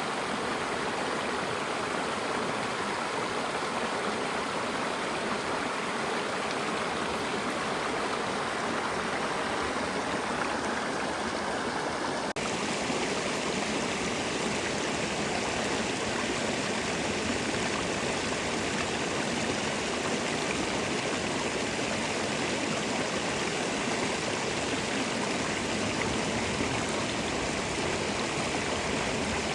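A stream running steadily, a continuous rush of flowing water, with a sudden slight change in its tone about twelve seconds in.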